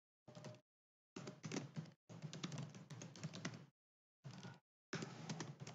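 Typing on a computer keyboard: quick runs of keystrokes in several spurts with short pauses between them.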